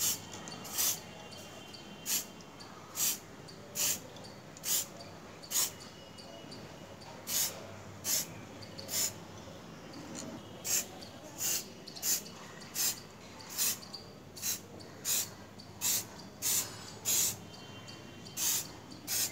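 Aerosol spray-paint can sprayed in short, even bursts of hiss, roughly one a second, with a couple of brief pauses, applying black paint to a motorcycle brake master cylinder.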